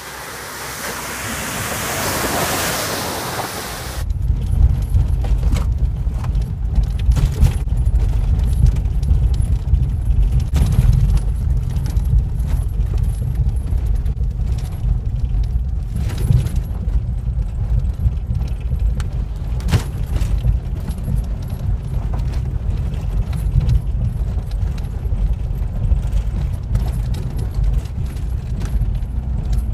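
A 4x4 off-road vehicle splashing through a muddy puddle, with a rising rush of spray for the first few seconds. It then cuts to a vehicle driving along a rough dirt track: a steady low rumble with many small rattles and knocks from the bumpy ground.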